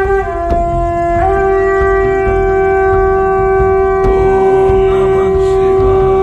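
Conch shell (shankh) blown in one long, loud, sustained note rich in overtones. Its pitch sags slightly just after the start and comes back up about a second in, then holds steady.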